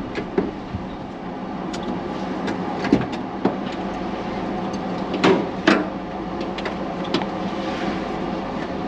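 A vehicle driving in traffic: steady engine and road noise with a low hum, broken by several sharp knocks or rattles, the loudest two close together a little past the middle.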